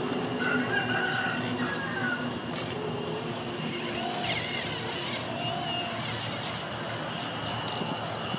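RC Komatsu PC360 excavator model's hydraulic pump running steadily with a high whine while the boom and arm move. Chickens call a few times in the background.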